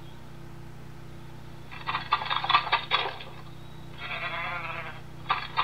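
Bighorn sheep sound clip played through a sound book's small speaker: a quick run of sharp clacks of clashing horns about two seconds in, then one wavering bleat about four seconds in, and more clacks near the end.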